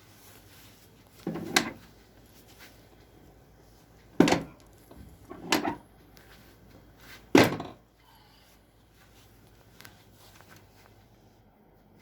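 Four sharp thumps from chiropractic adjustment thrusts on a treatment table, the first and third each doubled, spread over about six seconds.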